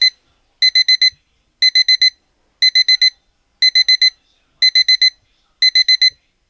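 LED mirror digital alarm clock's alarm beeping: quick groups of four short, high-pitched beeps, repeating about once a second.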